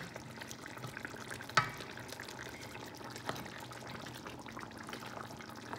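Chicken in a thick bumbu sauce cooking in a stainless steel pan, stirred with a plastic spoon. One short sharp knock comes about a second and a half in, and a lighter one later.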